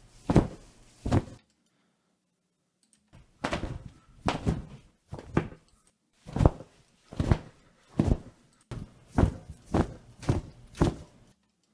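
Recorded wing-flap sounds played back one after another: short, separate flaps, a few in the first second or so, then after a pause a longer run of about a dozen, each a quick swoosh-thump. They are being auditioned as a brighter flap layer for a large dragon wing sound effect.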